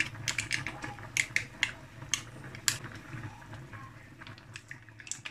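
Scattered small clicks and pops at a steel pot of soup, several a second at first and then thinning out, over a steady low hum.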